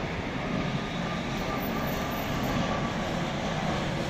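Twin-engine jet airliner on final approach with landing gear down, its engines giving a steady, even rushing noise with no change in pitch.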